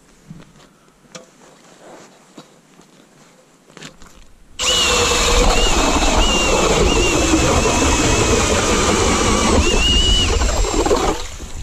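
A cordless drill driving a 150 mm ice auger, boring a hole through thick lake ice. It starts suddenly about four and a half seconds in: a motor whine that wavers in pitch under load, over the grinding of the auger's blades cutting ice. It stops shortly before the end.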